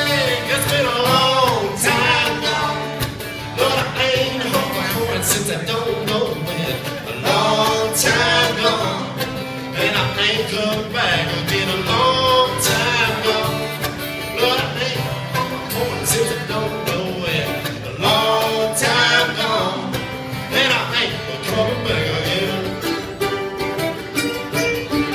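Live country-bluegrass music: a strummed acoustic guitar and a picked mandolin, with a man singing over them.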